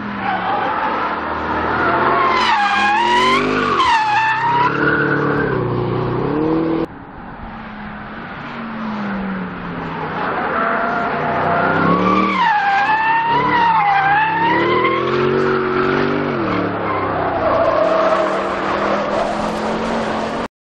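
Bentley Continental GT engine rising and falling in pitch as the car slides through corners, with its tyres squealing in wavering, pitched howls in two bouts. The sound cuts off abruptly near the end.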